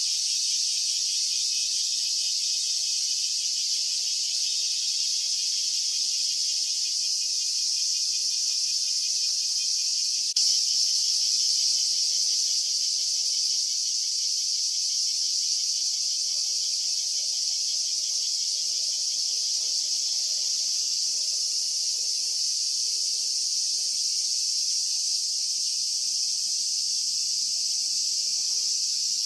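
Chorus of cicadas, a steady high-pitched buzzing that does not let up, slightly louder from about ten seconds in.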